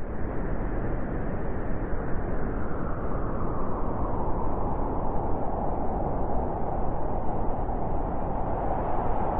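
Steady, even rushing white noise for sleep, muffled in its highs, swelling in at the very start and brightening slightly in its middle range about halfway through.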